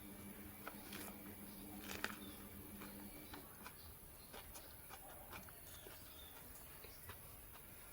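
Quiet eating sounds: chewing, with scattered small wet clicks and lip smacks. A low steady hum stops about three seconds in.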